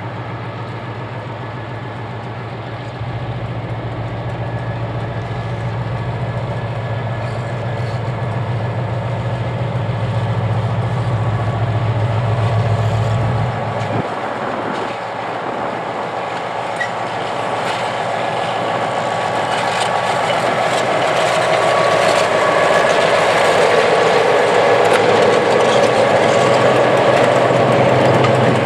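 Diesel switcher locomotives hauling a freight train past at low speed. A steady low engine tone stops about halfway through, then the wheels of the hopper cars rumble and clack over the rails, growing louder toward the end.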